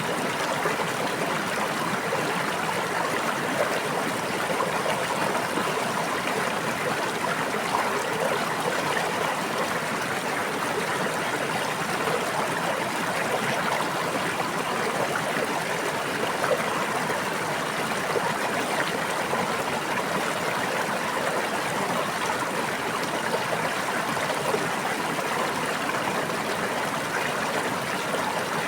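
A brook's water flowing and babbling steadily, an even rushing with no change in level.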